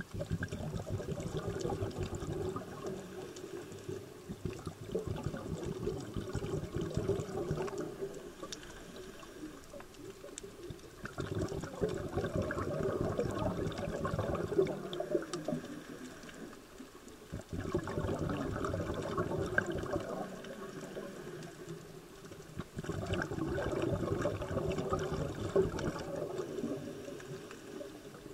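A scuba diver breathing underwater through a regulator: exhaled bubbles gurgle and rumble in about four long spells several seconds apart, with quieter pauses between.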